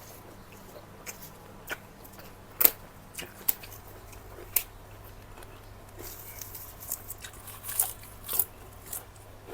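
Close-miked eating: chewing with wet mouth clicks and smacks, a scatter of sharp clicks that grows busier in the second half.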